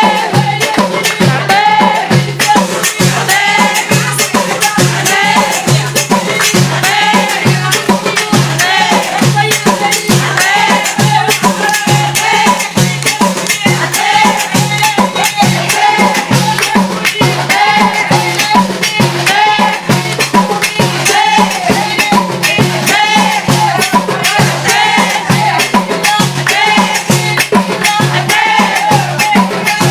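Folk song with a woman singing over rattling hand percussion and drums, keeping a steady quick beat.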